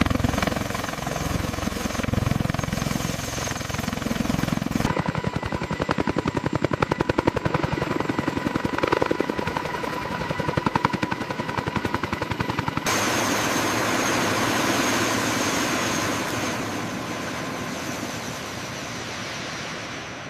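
Helicopter rotors and turbine engines running. A deep rush of rotor wash gives way abruptly, about five seconds in, to a fast, even chop of the rotor blades. From about thirteen seconds there is a steady high turbine whine with rushing air, which slowly fades near the end.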